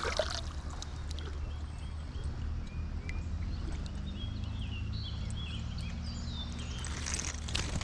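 Small songbirds chirping, many short scattered calls, over a steady low rush of outdoor background noise.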